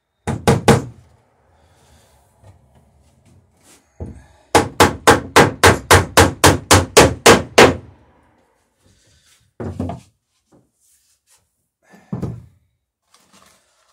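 Hammer peening over a rivet in the dory's planking: three quick blows near the start, then a fast even run of about fifteen blows at about five a second, then two single knocks.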